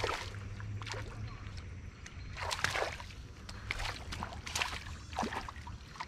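Hooked largemouth bass splashing and thrashing at the water's surface as it is played on a spinning rod, in irregular splashes. The biggest come about two and a half seconds in and again around four seconds.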